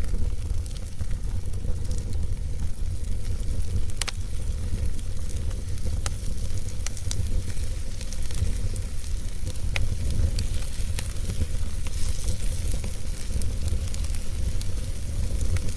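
Wood fire burning in a fireplace: a steady low rumble and hiss, with scattered crackles and pops. The sharpest pops come about four seconds in and again near ten seconds.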